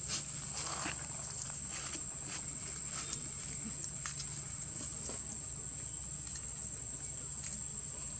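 A steady, high-pitched insect drone, with scattered light clicks and crackles of a dry leaf being handled by a baby macaque.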